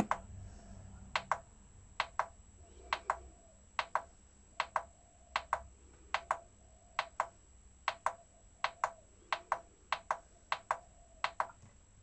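Front-panel INPUT button of a Yamaha RX-V473 AV receiver pressed over and over to step through the inputs. Each press gives a sharp double click, about one press a second, some fourteen in all.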